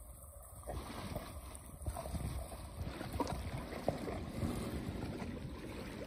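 Choppy sea water lapping and splashing in small irregular slaps, over a low steady rumble of wind. The splashing grows louder about a second in.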